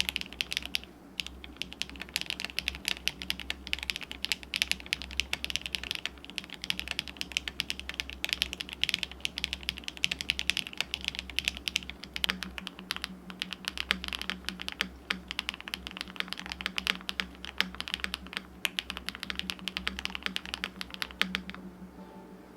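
Steady fast typing on a DR-70F mechanical keyboard with stock HMX Swift switches, a polycarbonate plate and MoDo 2 keycaps. The keystrokes come as a dense run of clicks with a brief pause about a second in, and they stop near the end.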